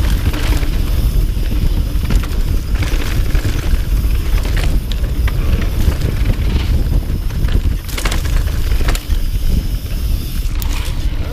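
Mountain bike riding fast down a dry dirt trail: a steady low rumble of tyres on dirt and air rushing past, with sharp clicks and rattles from the bike now and then as it goes over bumps.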